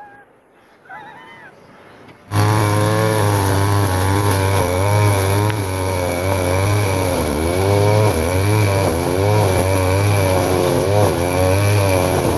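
Small engine running with its speed rising and falling unevenly, cutting in abruptly about two seconds in after a quiet start.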